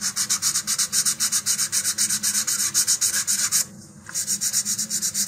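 Hand sanding of a paper-skinned balsa rocket fin's edge with a folded sheet of 220-grit sandpaper. It is quick back-and-forth rubbing at about seven strokes a second, with a short pause a little before four seconds in. The sanding feathers the glue-hardened paper skin into the wood to round and smooth the leading edge.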